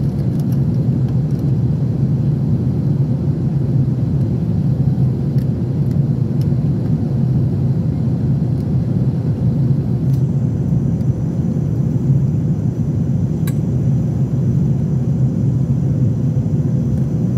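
Airbus A350 cabin noise during the climb after takeoff: a steady low rumble of the Rolls-Royce Trent XWB engines and the rushing air, heard from a seat over the wing.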